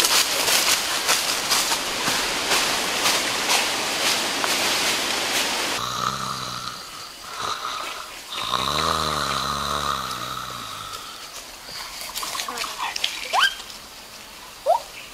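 A person snoring in long, rough, wavering breaths over a steady high tone, after several seconds of crackling, rustling noise. A few short rising chirps come near the end.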